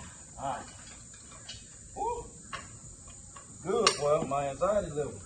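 Hand-pumped hydraulic engine hoist being worked, its metal parts giving a few sharp clicks and clinks. Near the end comes a louder, wavering voice-like sound.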